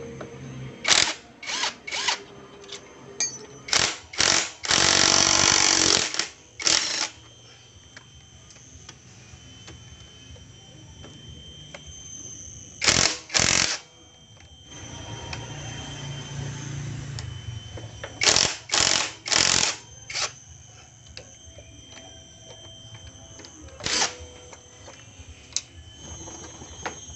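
Cordless impact wrench running in short bursts, with one longer run of about a second and a half, as it loosens the engine bolts of a motorcycle.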